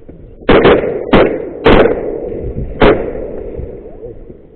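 A quick volley of about five shotgun shots over roughly two and a half seconds, each loud blast trailing off into an echo, fired at mallards coming in to the decoys.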